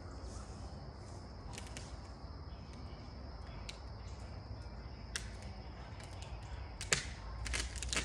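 Faint outdoor background: a steady high insect whine, with a few scattered sharp clicks and snaps from the tree work. The sharpest comes about seven seconds in, and rustling builds near the end.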